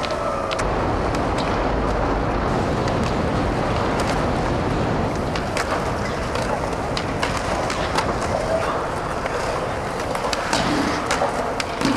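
Skateboard wheels rolling on concrete, a steady rumble, with scattered sharp clacks from the board hitting the ground and ledges.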